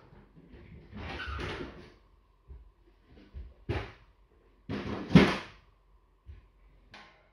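A few short household knocks and rustles, like a door or drawer being handled; the loudest comes about five seconds in.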